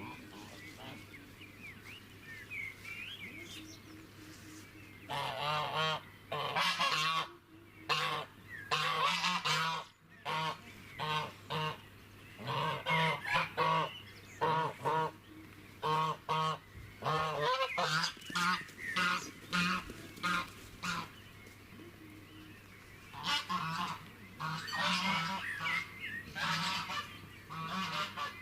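Geese honking, many harsh calls in quick succession in two long bouts, the second starting just before the end. Faint small-bird chirps come before the honking, over a steady low hum.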